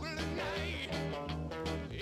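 Background music: a rock-style song with guitar over a steady, repeating bass line.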